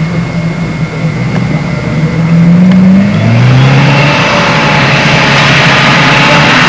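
Engine of a small four-wheel-drive vehicle climbing a sand dune under load: it revs up in pitch, drops to a lower pitch about three seconds in, then pulls steadily and louder.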